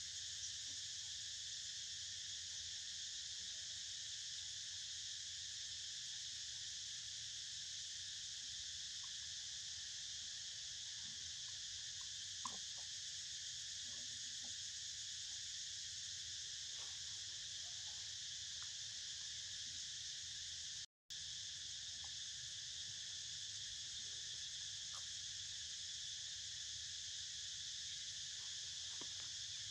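Steady, high-pitched chorus of insects buzzing without a break, with a few faint clicks; the sound cuts out for a moment about two-thirds of the way through.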